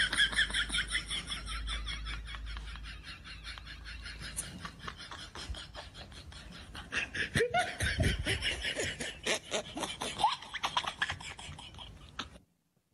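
A person's voice in quick, even pulses, getting louder about seven seconds in and stopping shortly before the end.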